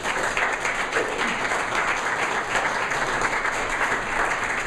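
Audience applauding: many people clapping steadily throughout.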